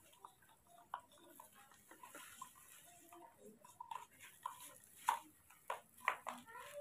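Faint, irregular ticks and clinks of a spoon stirring milk in a small plastic cup. A few sharper clicks come about five to six seconds in.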